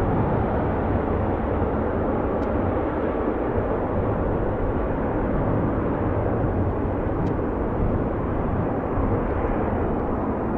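Boeing 777 airliner's twin jet engines, a steady, even rumble of jet noise as the aircraft rolls along the runway.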